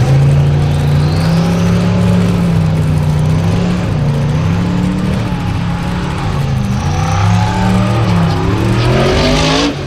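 Formula Offroad buggy's engine running hard at high revs as it climbs a steep dirt slope, its pitch wavering up and down. Near the end the revs climb, with a rush of noise, and then the sound cuts off suddenly.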